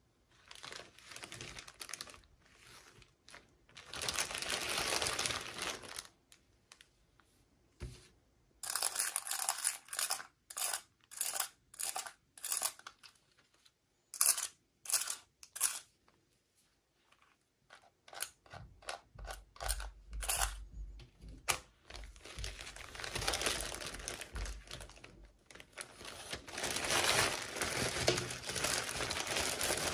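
Toy packaging being torn and crinkled open by hand: stretches of rustling and tearing, with a run of short separate crinkles in the middle.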